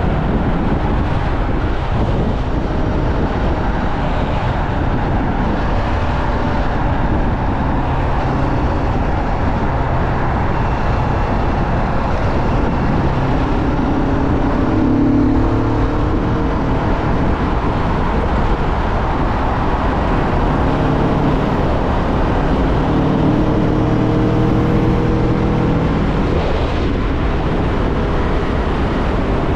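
Kawasaki Vulcan S 650's parallel-twin engine running while under way, under a heavy rush of wind on the microphone. The engine note comes through more strongly twice, around the middle and again later.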